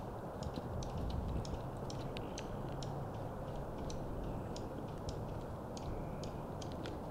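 Faint, irregular high-pitched ticks and clicks, several a second, over a steady low background rumble.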